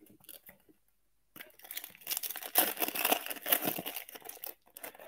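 A foil trading-card pack wrapper being torn open and crinkled by hand. After a faint rustle, the crackling tearing starts about a second and a half in, lasts about three seconds, and dies down near the end.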